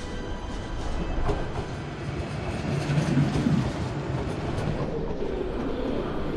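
Electric passenger train running past on the track, a steady rumble with wheels clicking over the rails, loudest about three seconds in.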